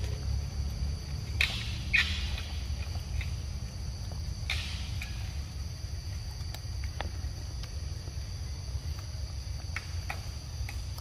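A young monkey biting and chewing a ripe mango: a few short wet crackles and clicks, the loudest in the first five seconds, over a steady insect drone and a low rumble.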